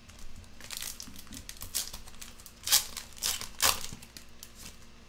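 Foil wrapper of a Topps Finest trading-card pack crinkling as it is handled, in a run of crackles with two sharper, louder ones in the middle.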